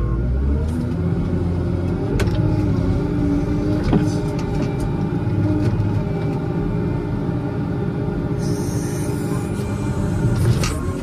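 Case 621E wheel loader's diesel engine running steadily under load as the loader works its bucket into a snow pile, heard from inside the cab. There is a sharp knock about four seconds in.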